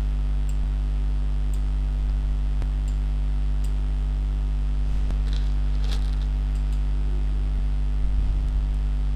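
Steady electrical mains hum, a low buzz with its overtones, with a few faint clicks scattered over it.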